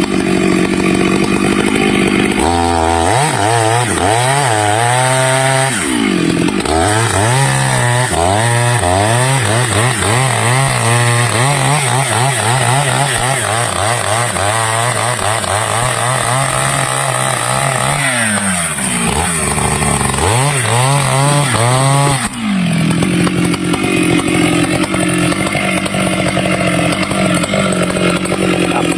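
Stihl chainsaw cutting teak, its engine pitch rising and falling again and again as throttle and load change, then running steadily for the last several seconds.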